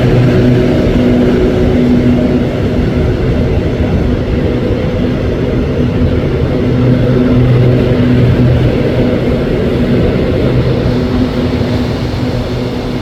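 Diesel engine of a stationary express train idling with a steady, loud hum over a rumble, as the train stands at a stop signal.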